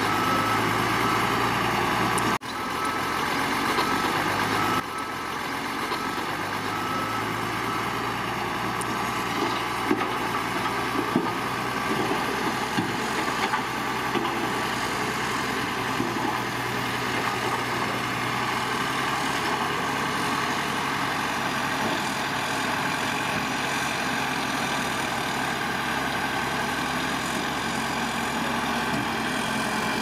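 Heavy diesel engine of an earthmoving machine running steadily, with a few light knocks in the middle. The sound changes abruptly twice in the first five seconds.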